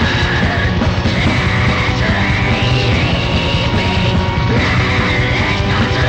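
Raw black metal on a lo-fi demo tape recording: dense distorted guitar and drums at a constant loud level, with a harsh screamed vocal over them.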